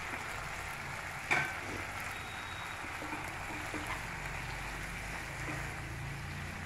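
Mint leaves, dried red chillies and garlic sizzling steadily in oil in a nonstick pan as they are stirred with a wooden spatula, with one short knock about a second and a half in.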